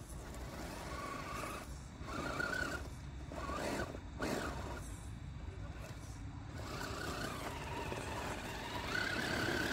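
Electric drive motor and gearbox of an Absima Sherpa RC crawler pickup whining in bursts as it is throttled up a dirt-and-gravel slope. The pitch rises and falls with each push: several short bursts in the first half, then a longer, louder stretch near the end.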